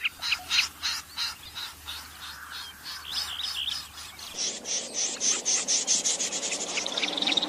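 Common snipe calls, played as a trapping lure: a fast series of short, harsh rasping notes, a few per second. About four seconds in the recording changes abruptly, with more background hiss, and the calls come faster.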